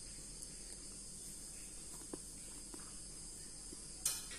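Faint steady high-pitched insect trill, like crickets, with a few soft taps and a brief rustle near the end.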